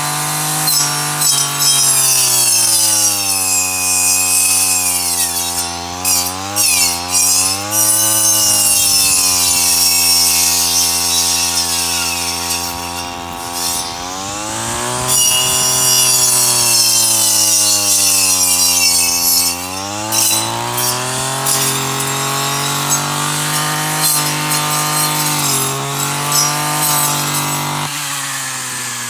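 Shoulder-slung engine brush cutter running while mowing grass on a slope. Its engine speed rises and sags again and again as the throttle is worked and the cutting head bites into the grass, with the clatter and swish of the cut stems.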